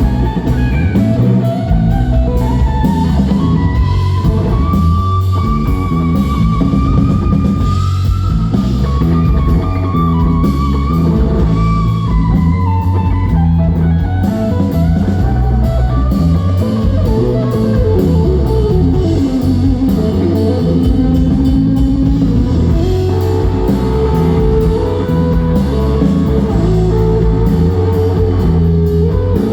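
Blues-rock band playing live without vocals: electric guitar lead line with long held, bending notes over drums and bass.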